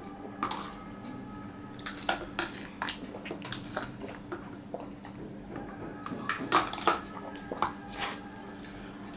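Small plastic cups of lemon juice being picked up, tipped back and set down on a table in quick succession: a string of irregular light clicks and taps, with sipping and gulping as two people race to drink them.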